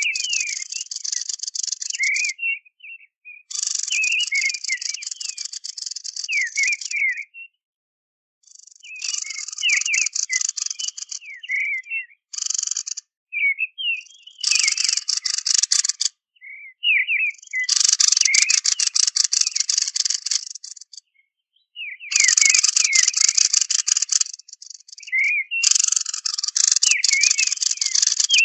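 Recorded bird song played as a trapping lure: about seven bursts of fast, buzzy rattling trill, each one to three seconds long, with short, sliding chirp notes in the gaps between them.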